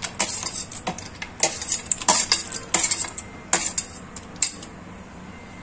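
Steel spoon scraping and clinking against a stainless steel plate as roasted cashews and almonds are pushed off it into the pan, in quick irregular clinks that stop about four and a half seconds in.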